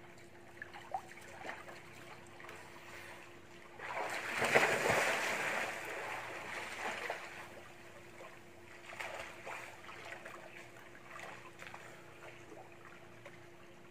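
Pool water splashing: a loud splash about four seconds in as a person goes into the water, fading over a couple of seconds into gentle sloshing and lapping.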